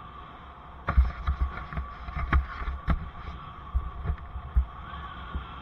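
An irregular run of sharp knocks and deep thumps, about a dozen over three seconds, starting about a second in: the bicycle and the helmet camera jolting over rough pavement. Steady wind and riding noise run underneath.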